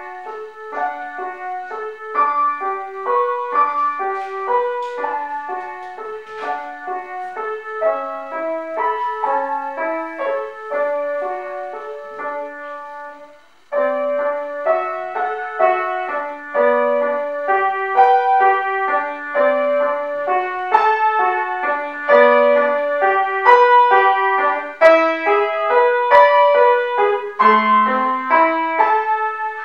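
A solo piano piece played by a young music-school pupil, in a steady run of notes. It breaks off briefly about thirteen and a half seconds in, then picks up again more loudly.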